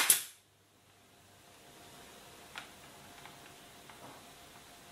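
Pneumatic brad nailer firing once at the very start, a sharp double crack that dies away within half a second, driving a brad into a wooden rail. A few faint ticks follow later.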